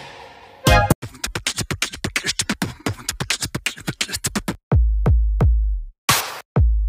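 Intro music with a beat: a quick run of sharp hits, about eight a second, then deep bass hits with short breaks from about two-thirds through.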